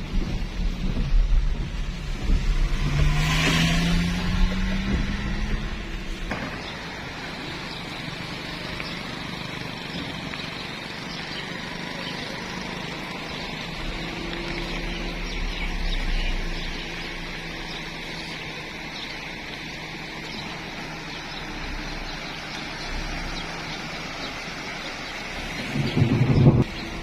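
Heavy rain and floodwater with a low rumble, and a vehicle engine rising in pitch a few seconds in as a jeep drives through the flood. After a sudden cut about six seconds in, a steady rushing hiss of rain and water, with a short loud low thump near the end.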